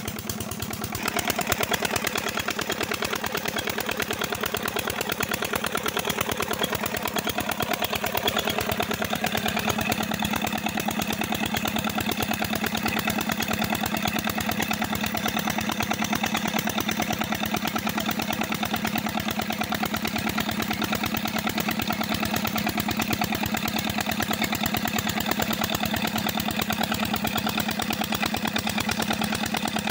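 Old Petter diesel engine running steadily under load, driving a tube-well water pump by a flat belt; an even, fast engine beat that grows louder about a second in and then holds steady.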